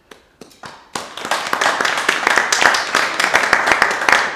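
Audience applauding: a few scattered claps, then full applause from about a second in.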